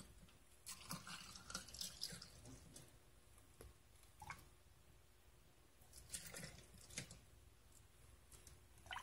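Faint dripping and splashing of horchata being ladled over ice into a glass, in two short spells about a second in and about six seconds in.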